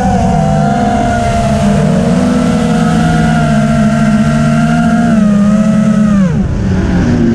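FPV drone's brushless motors and propellers whining at several close pitches, holding level and then dropping sharply in pitch as the motors slow near the end.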